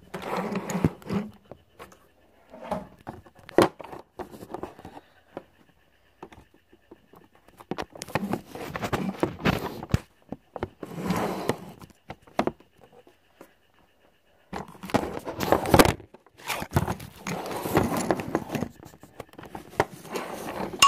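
Handling noise from a phone: rubbing, scraping and knocking on the microphone in irregular bursts of a second or two, with sharp clicks and quiet gaps between them.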